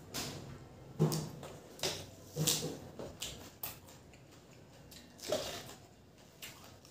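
Close-up eating sounds of a man chewing rice and egg curry eaten by hand: wet mouth smacks and squishes, with the soft clicks of fingers mixing rice on a steel plate. The sounds come at uneven intervals, the loudest about a second in and again just past five seconds.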